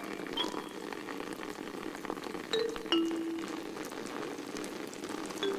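Steady rain falling with a fine patter of drops, and a few short, sparse tones over it.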